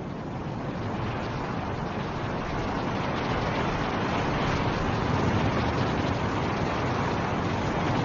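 Blizzard wind blowing, a steady rushing noise that swells over the first few seconds and then holds.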